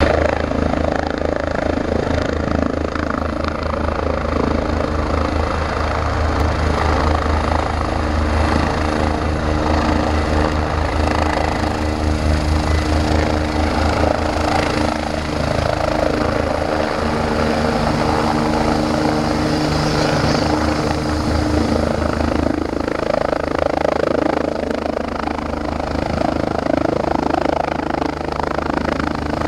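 Eurocopter EC145 twin-turbine helicopter hovering low during take-off: the main rotor beats in a fast, even chop under the steady hum of the turbines.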